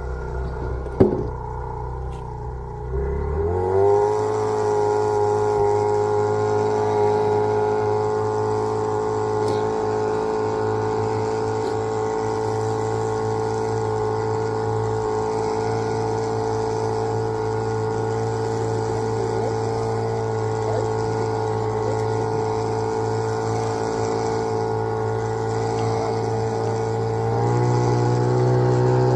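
Two-stroke outboard motor idling, then throttled up about three seconds in and running steadily at speed, with a small step up in pitch near the end. A single sharp knock about a second in.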